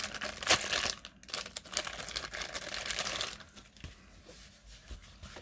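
Packaging crinkling and rustling as it is handled and unwrapped by hand, with many small crackles. It is busy for about the first three seconds, then drops to quiet handling noises.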